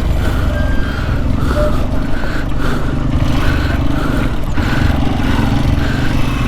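Motorcycle engine running steadily at a low, even pace.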